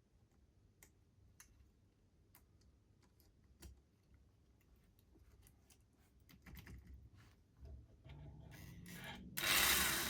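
Small clicks and taps of parts being handled on a workbench, growing busier after about six seconds; near the end a loud, steady rushing noise starts suddenly.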